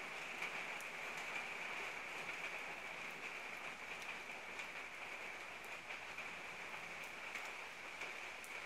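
Steady rain falling, an even hiss with scattered faint ticks of individual drops.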